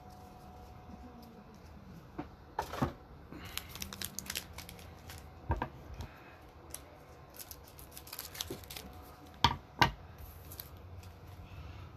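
Trading card pack wrappers being opened and crinkled while cards are handled: a run of light crackling and tearing, with a few sharp snaps, the loudest two in quick succession about nine and a half seconds in.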